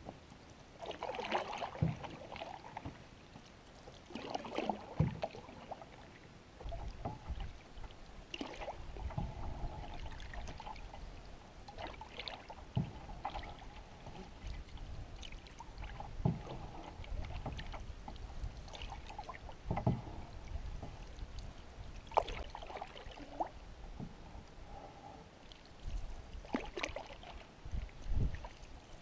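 Canoe paddling: a paddle dips and pulls through the water every three to four seconds, with water splashing and lapping along the hull and a low rumble under it.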